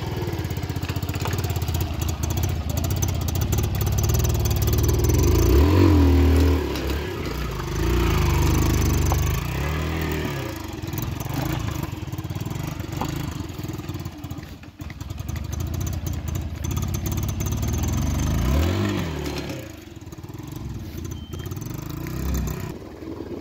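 Motorcycle engine labouring over a rough, rocky dirt track, its revs rising and falling several times, loudest about six seconds in, with clattering from the bumpy ground.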